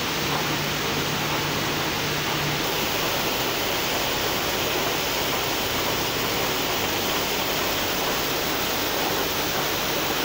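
Steady, dense whirring noise of running knitting machinery, with a low hum underneath that stops about two and a half seconds in.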